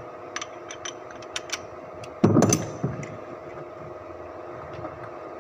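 Engine running with a steady hum, with several sharp clicks and one loud knock a little over two seconds in.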